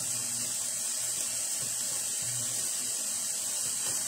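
Sliced sausage and onions sizzling in a frying pan on medium-high heat: a steady, even hiss.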